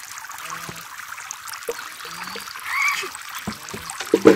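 Water trickling and splashing from a mini water pump's outlet into a small pond. A short call is heard about three seconds in, and a sudden thump near the end.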